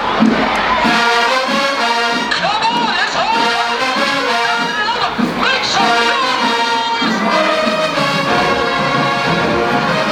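Marching band brass section playing a tune, trombones and trumpets loud over a steady rhythm, with some notes sliding in pitch.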